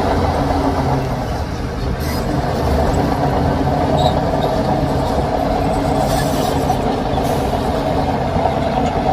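Heavy diesel earthmoving machinery running steadily under load, with a low engine drone and a few short hisses, about two seconds in and again around six to seven seconds.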